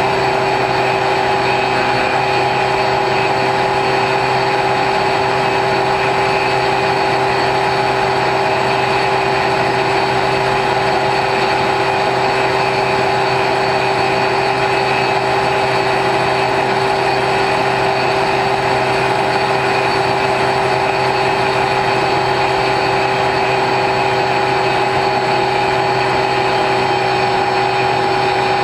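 Brushless electric motor spinning a 9x6 pusher propeller on an X-UAV Talon RC plane at steady cruise throttle, heard from on board as a constant propeller buzz over rushing airflow.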